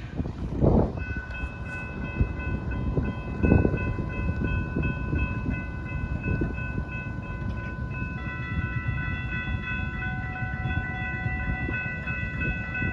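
Freight train cars rolling past with a steady low rumble and a couple of louder knocks, while steel wheels give a sustained high-pitched squeal that shifts to a different set of tones about eight seconds in.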